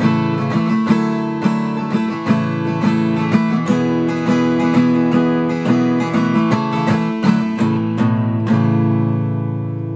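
Background music played on acoustic guitar: a run of picked and strummed notes, ending on a chord that rings out near the end.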